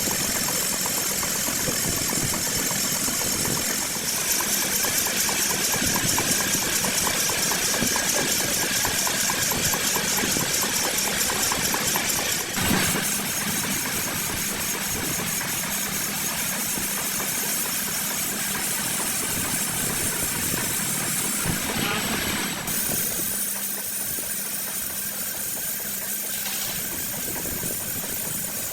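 Metal lathe running with the cutting tool working a flywheel face, a dense machining noise with a fast rattling chatter and a high steady whine. The sound changes abruptly three times.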